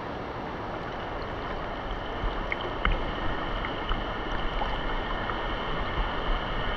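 Fast-flowing stream running high after flood rains, a steady rush of water. From about two seconds in there are low rumbling bumps and a few small clicks.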